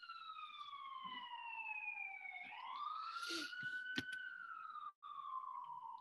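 Faint emergency-vehicle siren wailing. Its pitch falls slowly, climbs again about halfway through, then falls once more.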